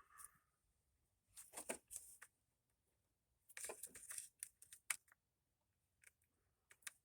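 Faint, scattered clicks and scrapes of hands and tools working on a scooter, in two short clusters with a few single ticks near the end.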